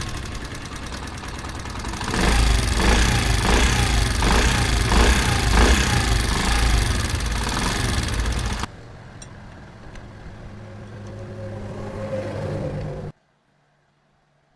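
Motorcycle engine running with a noise problem, loud for several seconds with a repeated knock about twice a second. It then runs more quietly and cuts off abruptly near the end.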